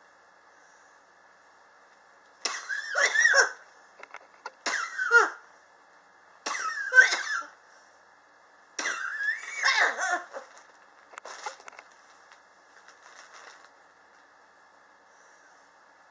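A person coughing in repeated fits, about five harsh bouts starting a couple of seconds in, the last ones weaker. It is a chronic cough that has gone on for years.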